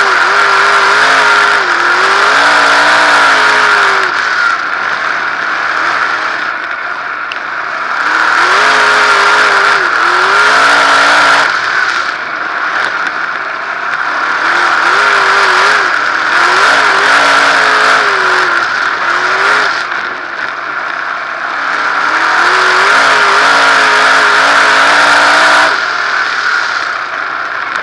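360 sprint car's V8 engine heard from the cockpit at racing speed, revving hard along each straight and falling away when the throttle lifts for the turns, about every seven seconds. Near the end the engine eases off and the sound drops.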